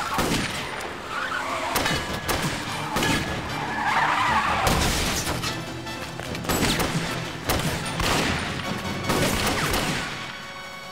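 Action-scene soundtrack: a music score with sharp hits about once a second, mixed with car sounds during a struggle at a car.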